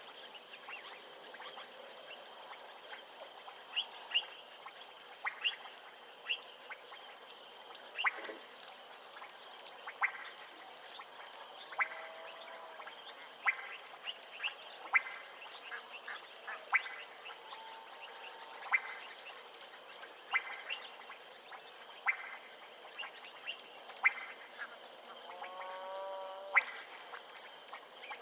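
Frogs calling: sharp clicking notes about every second or two over a steady high insect drone, with a short warbling call near the end.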